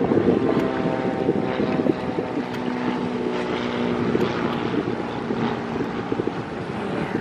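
Wind buffeting the microphone in gusts, with a steady engine drone underneath.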